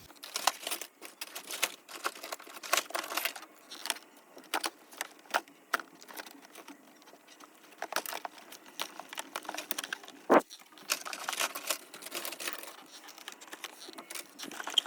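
Cardboard and plastic packaging being handled, with irregular clicks and crinkles as tape is pulled off the box, and one louder knock about ten seconds in.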